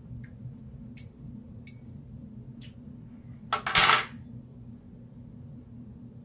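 Cutlery on a plate while eating: a few light clicks, then a louder clatter about halfway through, over a steady low hum.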